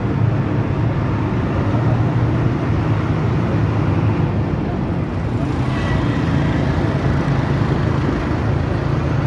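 Steady low engine drone with a rushing noise around it, as from motor vehicles, and a faint brief high tone about six seconds in.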